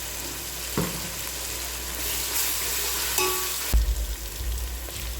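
Onions, tomatoes and ginger-garlic paste sizzling as they fry in a pan, with a spoon stirring them. A brief low bump is heard about three and a half seconds in.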